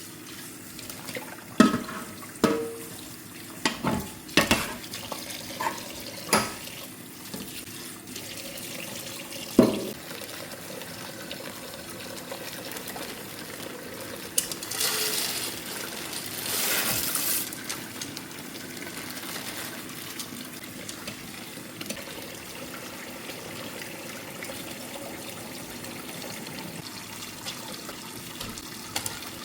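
Kitchen work at a sink: dishes and utensils knock and clink several times in the first ten seconds, then a tap runs for about three seconds midway.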